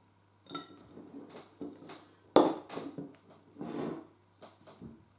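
Glass beer bottle and metal bottle opener being handled on a wooden table: a string of separate knocks and clinks, the sharpest about two and a half seconds in.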